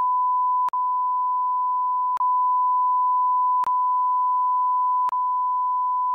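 Censor bleep: a steady, high, pure beep tone covering a stretch of speech. It has short dropouts with a faint click about every second and a half, where the bleep segments are joined.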